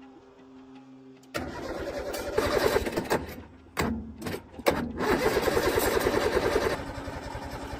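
Old tractor engine being cranked over in two loud spells of fast pulsing, with brief stops between them, then easing to a lower level near the end. The owner says the engine won't start.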